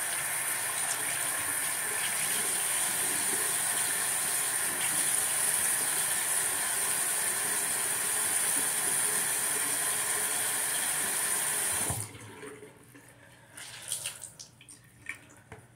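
Water running steadily from a bathroom sink tap into the basin while hands work under it; the flow is shut off abruptly about twelve seconds in, leaving a few faint knocks and rustles.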